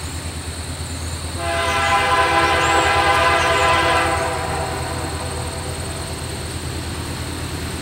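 A locomotive horn sounds one long blast about a second and a half in, lasting roughly two and a half seconds, over a steady low rumble.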